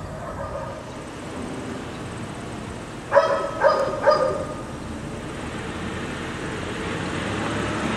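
A dog barking three times in quick succession, about half a second apart. Behind it is a steady rush of outdoor background noise that grows louder near the end.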